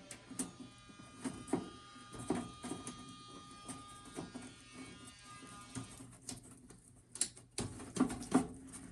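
Irregular clicks, scrapes and rustles of hands working on wiring, pulling something off a connection. A faint steady hum runs underneath, and a louder cluster of clicks comes near the end.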